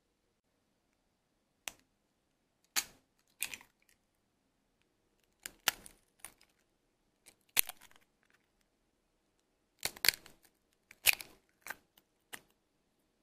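Eggs cracked one after another into a bowl: sharp shell cracks and crackles in about three groups, a knock or two and the crunch of the shell pulled apart for each egg.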